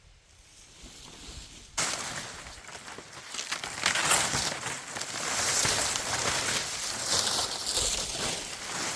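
Rustling, crackling noise that starts suddenly about two seconds in and keeps going.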